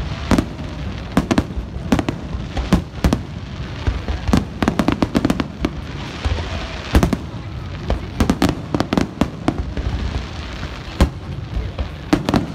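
Fireworks display: aerial shells bursting in many loud bangs at irregular intervals, often several in quick succession, with a brief crackling hiss about halfway through.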